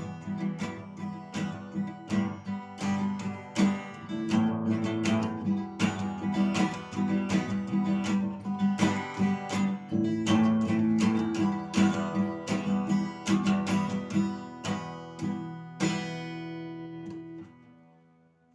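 Acoustic guitar strummed in a steady rhythm as an instrumental outro. A final strum about sixteen seconds in rings out and fades away.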